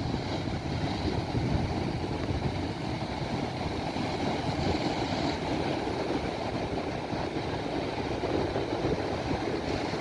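Heavy surf: big swell breaking offshore and white water washing up a sand beach, a steady rushing noise without pause.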